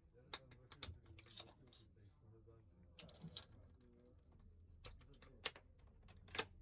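Metal safety latch on a sleeper-compartment door clicking and rattling as it is handled: scattered light clicks, with sharper ones about half a second in and near the end.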